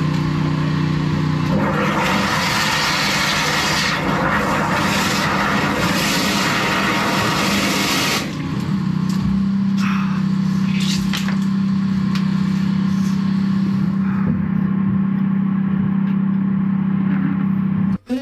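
Drain-jetting machine's engine running steadily while its high-pressure water jet hisses and rushes in the manhole. The rushing water is loudest for the first eight seconds or so, then eases, leaving mostly the engine's hum.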